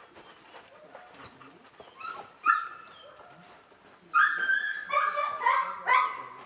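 A canine whining and yelping in short, high-pitched calls: a few scattered calls at first, then a rapid run of them from about four seconds in.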